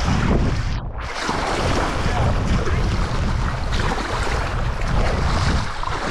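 Swift, shallow river water rushing and splashing around legs wading through it barefoot, with wind buffeting the microphone.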